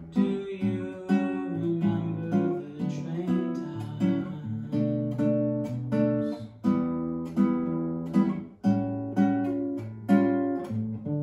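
Nylon-string classical guitar played solo in a bossa nova style: fingerpicked chords struck about twice a second in a syncopated rhythm, each ringing and dying away, with no singing.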